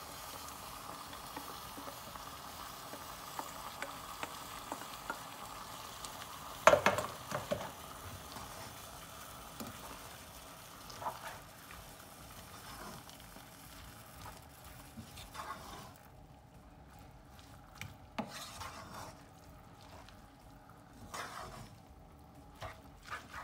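Spaghetti, chicken and vegetables sizzling in a saucepan while a wooden spoon stirs and scrapes through them, with scattered knocks against the pan. A loud clatter comes about seven seconds in. The sizzle dies down for the last third.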